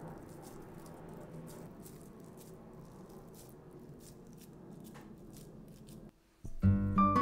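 Faint, scattered light clicks and rattles over a low steady hum. Near the end it drops out briefly, then mallet-instrument music like a vibraphone starts.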